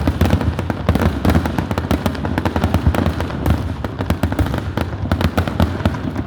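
Fireworks going off in a rapid, unbroken barrage of crackles and pops, over a steady low rumble.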